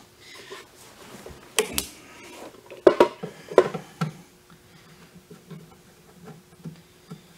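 Sharp clicks and knocks, about six over a couple of seconds, as a TIG foot pedal's cable plug is handled and pushed into the ESAB Rebel EMP 205ic welder's front socket. A faint steady hum follows.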